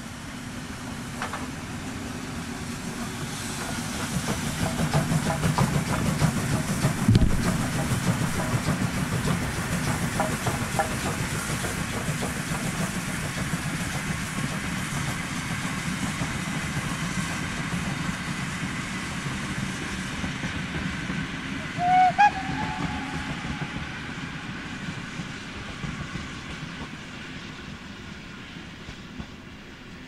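Steam locomotive passing with a passenger train, its exhaust working and wheels clattering on the rails, loudest from about four to twelve seconds in, with a sharp knock about seven seconds in. A brief whistle sounds about 22 seconds in, and the train fades as it draws away.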